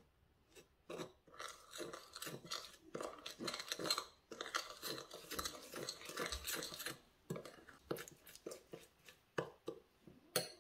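A steel spoon stirring spices and oil into a thick paste in a ceramic bowl, scraping and clinking against the bowl in quick, uneven strokes with a couple of short pauses.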